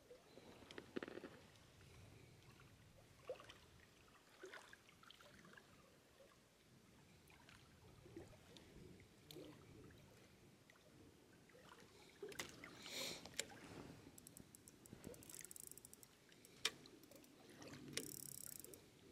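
Near silence with faint scattered clicks, knocks and rustles of handling, a quick run of fine ticks about two-thirds of the way through, and a short hiss near the end.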